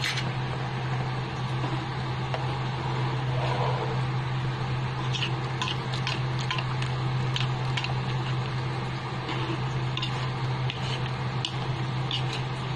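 A pan of egg-and-tomato sauce simmering, with small bubbling pops scattered through, over a steady low hum.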